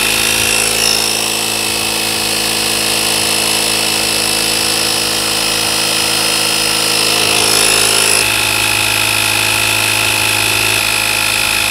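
Vaclife portable air compressor running steadily and loudly as it pumps air through its hose into an inflatable wobble cushion, with a slight change in tone about eight seconds in.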